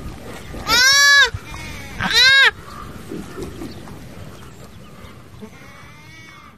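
Goat bleating: two loud bleats about a second apart, each rising then falling in pitch, then a fainter bleat near the end.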